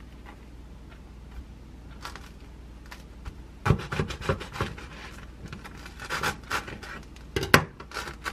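Knife sawing through a bagel's crust on a wooden cutting board: a run of crunchy scraping strokes about halfway through, more a couple of seconds later, then a sharp knock near the end as the knife is put down on the board.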